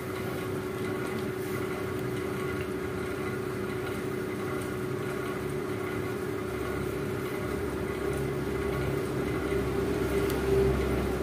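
A steady machine hum, joined in the second half by a low rumble that grows louder and peaks near the end.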